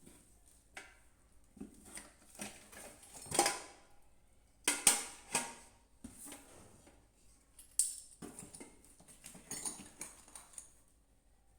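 Irregular clicks, taps and clatters of small hard objects, the loudest coming between about three and a half and five and a half seconds in.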